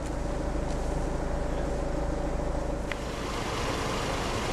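Steady low rumble of idling vehicle engines, with a short click about three seconds in.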